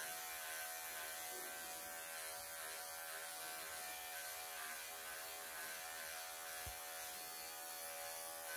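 Wahl electric pet clippers running with a steady buzzing hum while trimming the long fur of a Ragdoll cat's bib.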